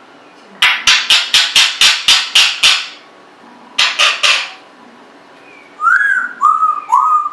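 Congo African grey parrot vocalizing: a quick run of about nine harsh, noisy calls, two more a second later, then a string of short whistled notes that each rise and fall in pitch.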